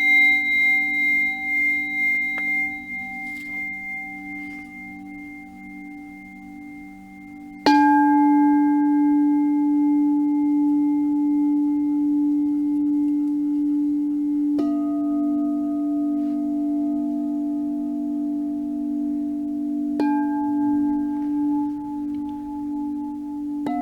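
Bronze Japanese Buddhist temple bell ringing on from a strike just before, with a long, slowly wavering hum. It is struck again three times, about a third of the way in, just past halfway and near the end; the last strike is softer.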